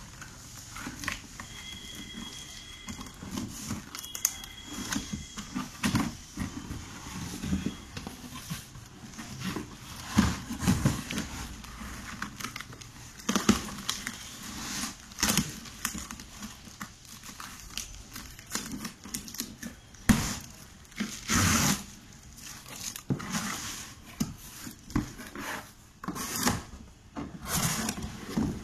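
Hands opening a cardboard shipping box: packing tape tearing and the cardboard flaps and packing rustling and scraping in irregular bursts, with a few sharp knocks.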